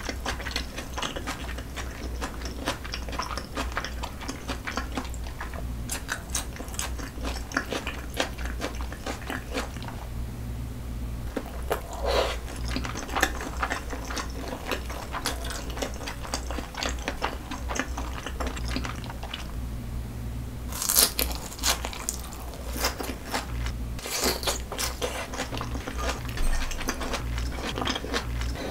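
A person chewing food close to the microphone: a steady run of wet chewing clicks with crunchy bites, a few louder bites midway and near the end. A faint steady low hum runs underneath.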